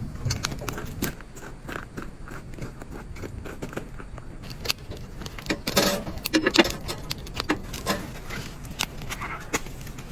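Scattered clicks, taps and scrapes of objects being handled, with a denser clatter about six seconds in.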